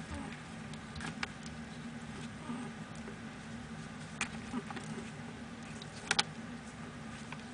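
A cat playing: scattered light taps and clicks of paws and claws, the loudest a quick double click about six seconds in, over a steady low hum.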